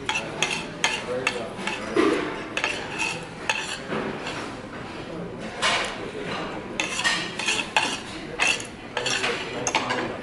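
Forks and spoons clinking and scraping against plates while eating, in irregular short clinks, over the steady hum of a busy restaurant dining room.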